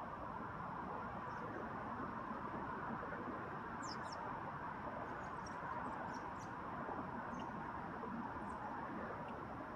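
Outdoor ambience: a steady, faint rushing hiss with short, high chirps from small birds scattered through it, a cluster about four seconds in and a few more around six and eight seconds.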